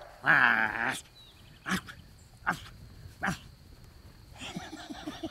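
Four-week-old Great Pyrenees puppies playing and vocalising: three short sharp yips spaced under a second apart, and thin high whimpering near the end. It opens with a loud, drawn-out wavering cry lasting under a second.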